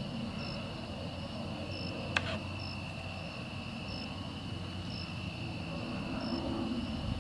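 Crickets chirping, with short chirps about once a second over a steady high insect drone. A single sharp click sounds about two seconds in, over a low background rumble.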